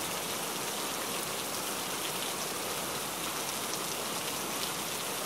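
Steady rain on a window pane: an even hiss with fine drop ticks.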